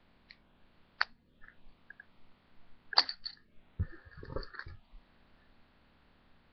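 Small plastic toy figures clicking and knocking as they are handled: a few sharp clicks, then a short run of low knocks and rattling about four seconds in.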